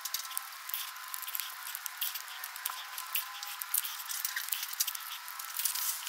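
Many small, quick clicks and scrapes of a hand tool being worked in gloved hands; the sound is thin, with no bass at all.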